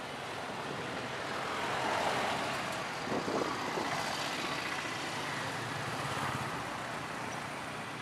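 Street traffic noise from a busy city road, a steady mix of passing engines and tyres. It swells louder about two to three seconds in as a vehicle passes close.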